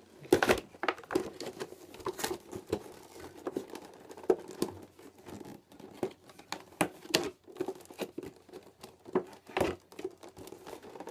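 Plastic bag and cardboard toy packaging crinkling and rustling as it is unpacked by hand, in irregular crackles and taps.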